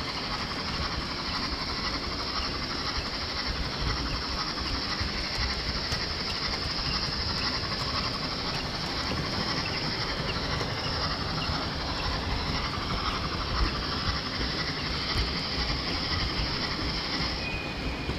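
Model railway train running along the layout track, heard from on board: a steady rumble and rattle of wheels on the rails with light clicks, and a high hiss that cuts out near the end.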